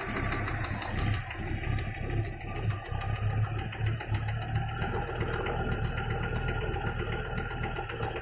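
Audi 2.3 NG five-cylinder engine idling warm with a fast, rhythmic knock from the bottom end. The owner hears it loudest at the oil pan near cylinder 4 and suspects piston skirt slap.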